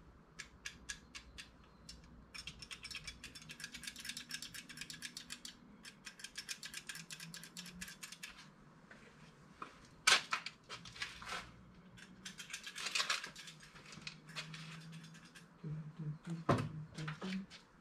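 Rapid runs of small sharp clicks from small car parts being worked by hand, with a couple of louder single knocks, one about ten seconds in and one near the end.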